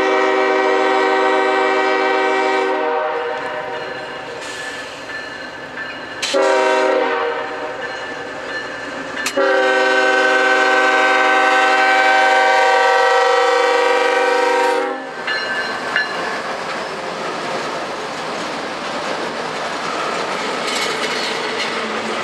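Norfolk Southern diesel locomotive's multi-note air horn blowing three long blasts as the train approaches, the last and longest cutting off about fifteen seconds in. Then the locomotive passes and double-stack container cars roll by with steady wheel clatter on the rails.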